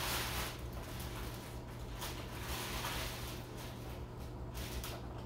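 Palette knife scraping and smearing oil paint across a canvas in several short, irregular strokes, over a steady low hum.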